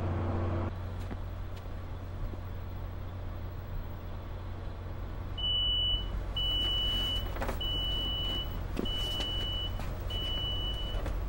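Steady low rumble inside a FrontRunner commuter rail car. About halfway through, a high electronic beep starts repeating about once a second, the train's door warning tone.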